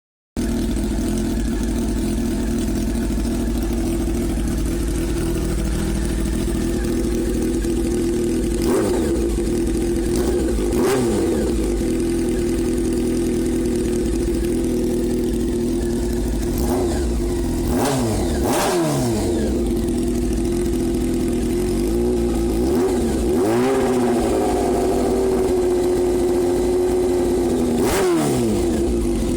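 2000 Honda CBR600F4's inline-four engine running on a straight pipe with the muffler removed: it idles steadily and is blipped several times, each rev rising sharply and falling back to idle, with two quick revs close together about halfway through.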